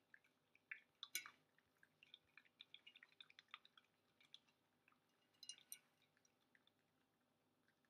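Faint wet chewing and lapping of an eight-week-old schnoodle puppy eating food softened with water from a metal bowl, a patter of small irregular clicks and smacks that thins out near the end.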